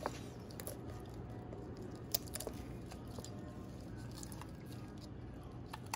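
Kitchen shears cutting through a whole chicken's rib bones alongside the backbone to spatchcock it: a few sharp crunching snaps a second or two apart.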